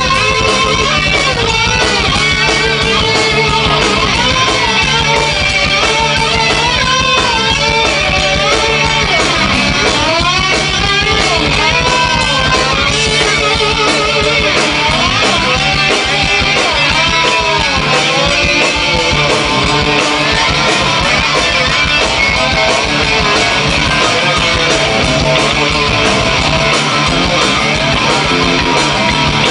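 Live rock band with electric guitar playing a lead line full of bending, gliding notes over a steady bass and drum backing.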